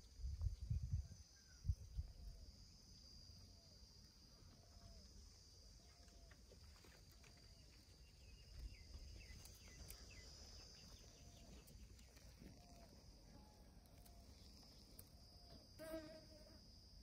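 Faint outdoor ambience: insects trilling steadily at a high pitch, with soft short calls repeating about once a second. Low rumbles of wind or handling sound in the first two seconds, and a brief pitched animal call comes about a second before the end.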